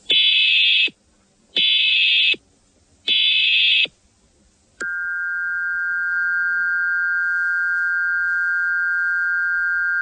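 Emergency Alert System tones: three short bursts of the screeching digital header, then from about five seconds in a steady two-tone attention signal that holds on. This is the start of a new alert broadcast.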